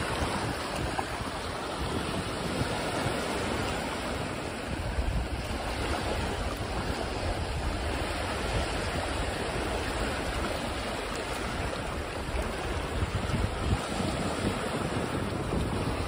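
Small waves lapping and washing up over shallow sand and against the rocks of a jetty, with wind buffeting the microphone in a low, uneven rumble.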